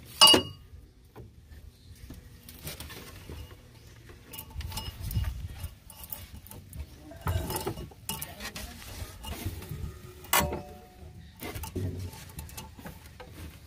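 Scattered metallic clinks and knocks of tools and metal parts being handled, some briefly ringing. A sharp knock right at the start is the loudest.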